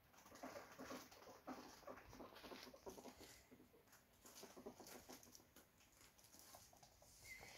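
Faint, irregular scuffing and clicking of a ferret's feet and claws as it scampers and sniffs over a rug and laminate floor.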